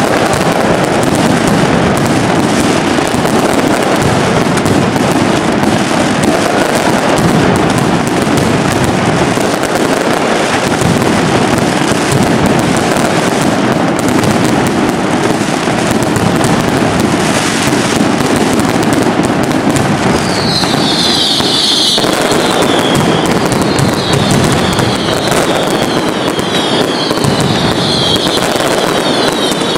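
Mascletà firing: a dense, continuous barrage of firecracker bangs and aerial bursts. About twenty seconds in, shrill high whistles join the barrage.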